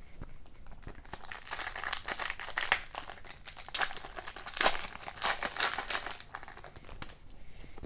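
Foil wrapper of an O-Pee-Chee Platinum hockey card pack being torn open and crinkled by hand: a dense run of sharp crackles that starts about a second in and stops about a second before the end.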